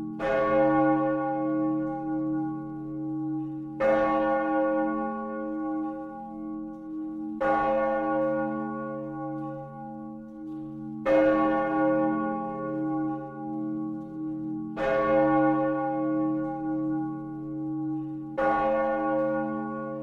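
Big church bell tolling slowly, struck six times about every three and a half to four seconds. Each stroke rings on with a deep hum beneath it until the next.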